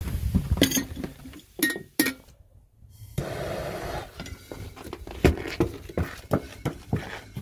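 A glass coffee pot and its plastic lid clinking as they are handled, two of the knocks ringing briefly. A butane torch then hisses for about a second, and a run of sharp crackles and clicks follows as the lit firecracker fuse burns.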